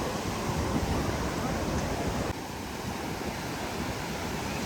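Ocean surf washing in, with wind buffeting the microphone; the sound drops a little in level about halfway through.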